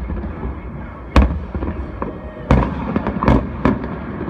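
Distant aerial fireworks shells bursting: a loud bang about a second in, then several more bangs in quick succession in the second half, each trailing off in a rumbling echo.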